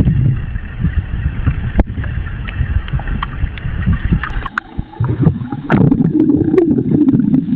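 A sound effect generated by Meta's Audiobox AI tool, played back: a rough, churning low rumble with scattered clicks, muffled and thin in the highs, with a humming tone joining in about five seconds in.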